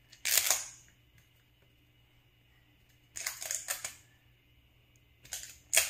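A small cardboard toy box being handled and turned over, its packaging rustling and crinkling in three short bursts, the last ending in a sharp tap.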